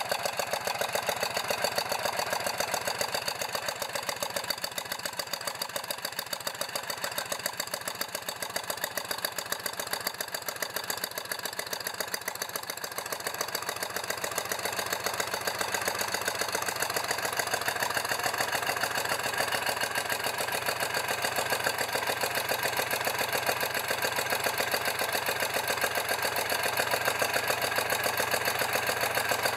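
Mazda CT's 1147 cc air-cooled V-twin engine running steadily on a stand, with a fast, even mechanical ticking over its exhaust beat.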